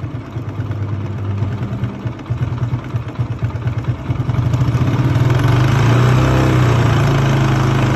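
TVS Apache 160 single-cylinder motorcycle engine running, with the throttle opened slightly about four seconds in and held at higher revs; it carries an abnormal ticking noise that the mechanic puts down to a stretched, overlong cam chain.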